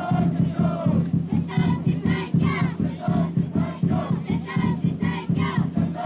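Crowd of supporters chanting and singing together, with many voices in unison over a steady rhythmic pulse.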